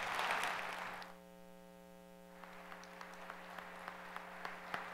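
Audience applauding faintly at the close of a talk: a burst of clapping that dies down about a second in, then scattered single claps at about three a second.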